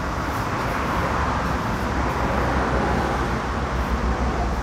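Passing road traffic: an even rush of vehicle noise over a low rumble, swelling in the middle and easing off near the end.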